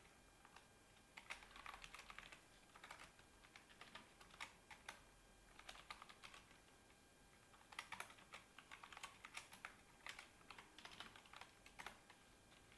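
Faint computer keyboard typing: quick runs of keystrokes broken by short pauses.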